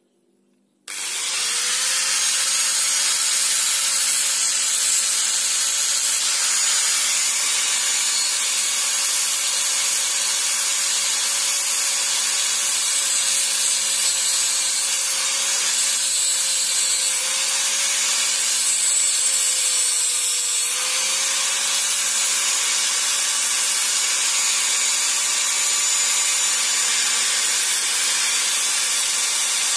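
Electric angle grinder switched on about a second in, then running steadily with its disc grinding against a small metal part. The motor's whine dips slightly under load about two-thirds of the way through, then recovers.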